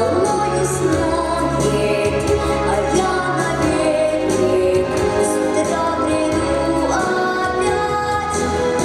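Children's song performed on stage: singing voices over instrumental accompaniment with a steady bass line.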